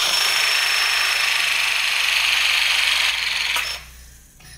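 Battery-powered electric pipe press tool running through a press cycle, crimping a collar fitting onto a 1.5-inch pipe: a loud, steady motor noise with a high whine on top that stops about three and a half seconds in.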